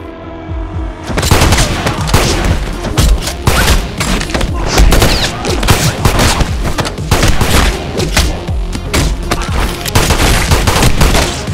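Rapid pistol gunshot sound effects with heavy booms, over a music score. The shots start suddenly about a second in, after a held music chord, and keep coming in quick succession.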